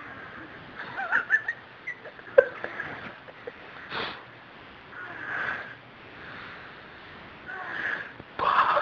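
A person's raspy, wheezing breaths in several irregular bursts, snort- and snore-like.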